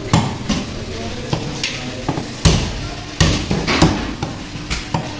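Butcher's cleaver chopping goat meat on a wooden log chopping block: about nine sharp, irregular chops, the loudest about halfway through.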